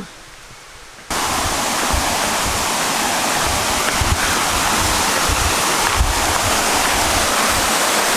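Waterfall rushing: a loud, steady roar of falling water that comes in suddenly about a second in, with irregular low rumbles under it.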